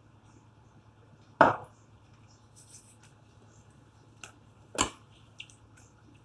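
Two knocks on a kitchen countertop, about three and a half seconds apart, the first the louder, with a few faint taps in between, as bread dough is oiled and kneaded by hand.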